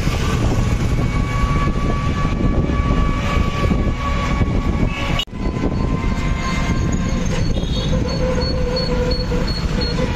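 Steady rumble and rattle of a moving vehicle heard from on board, with faint steady whines above it. The sound drops out abruptly for an instant about five seconds in.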